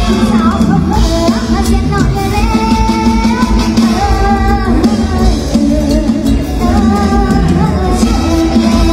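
Live Isan mor lam music in the lively toei style: a sung melody over a loud, steady bass-heavy beat.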